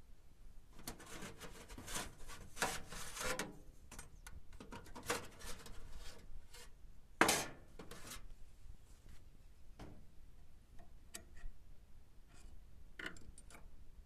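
Irregular rubbing and scraping handling noises in the first half, with one sharp, louder knock about seven seconds in and a few light clicks near the end.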